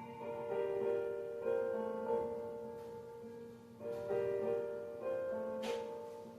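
Slow piano music, notes struck about once a second and left ringing, with a short burst of noise near the end.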